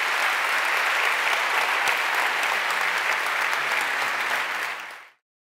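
Audience applauding, a steady wash of clapping that fades out quickly near the end.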